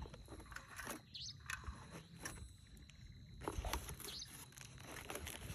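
Light clicks and handling rustles as a small portable gas stove is fitted onto its gas canister, with a bird giving a short chirp twice, about a second in and again about four seconds in.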